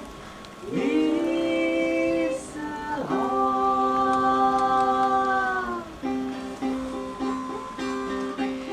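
A voice singing long held notes, each sliding up into pitch at its start. About six seconds in, a plucked string instrument takes over with a quick repeated figure.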